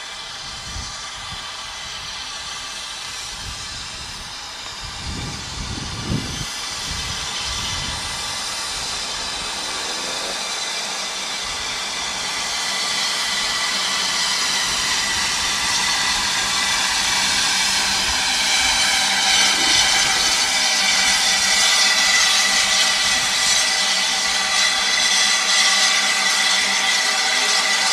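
Narrow-gauge steam locomotive approaching, a steady hiss that grows steadily louder as it draws near, with a few low thumps about five to seven seconds in.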